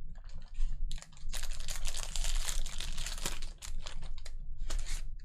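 Trading cards and their foil pack wrapper being handled: about two seconds of dense crinkling and rustling, with scattered short clicks and flicks before and after it.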